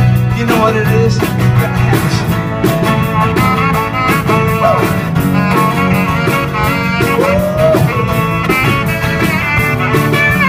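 Live blues-rock band playing: acoustic guitar, electric bass and drum kit with steady cymbals, under a saxophone lead line that slides and bends in pitch.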